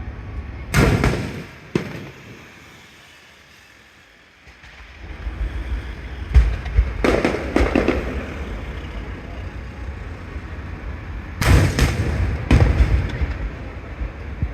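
Aerial fireworks shells bursting in booms. Two bursts come early, then a lull of about two seconds, then runs of several quick bursts around the middle and again near the end.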